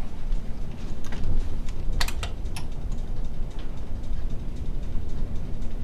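Steady low rumble with a quick run of sharp clicks about two seconds in, and a few fainter ticks scattered through.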